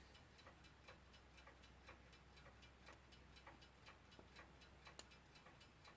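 Westclox Big Ben Style 1 alarm clock movement ticking faintly and evenly as the newly fitted balance wheel runs. The restorer judges the beat to be still off.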